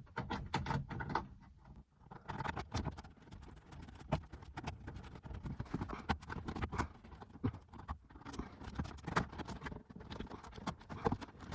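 Irregular small clicks, taps and scrapes as a plastic interior trim panel and its screws are handled and worked into place.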